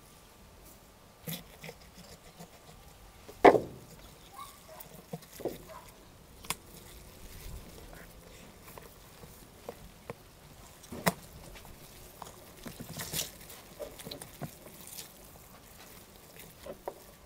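Hands handling a greasy whole roast lamb, making scattered wet squelches and sharp clicks as its legs are tucked into slits in the meat. The loudest clicks come about three and a half and eleven seconds in.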